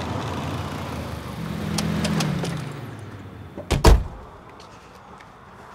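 A car engine running with road noise that swells and then dies away about three seconds in. Then a car door is shut with a sharp double thump near four seconds.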